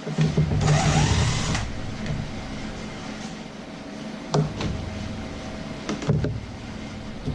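A small electric motor whirs briefly for about a second, like a cordless power tool run in short use, followed by two sharp metallic clicks.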